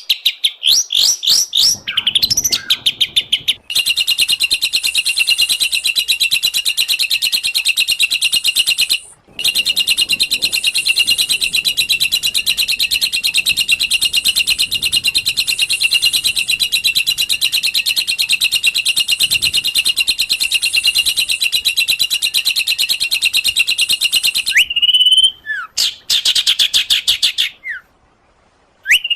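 Songbird singing: a few quick sweeping whistled notes, then a very fast, sustained trill lasting about twenty seconds with one short break, then a few slurred whistles and a brief pause near the end.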